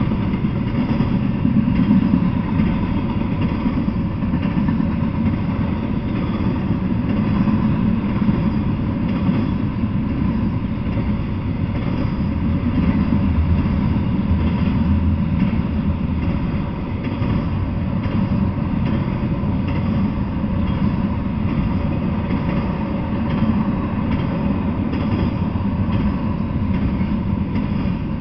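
Double-stack intermodal freight train rolling past: a steady, loud rumble of the cars' wheels on the rails, with no break.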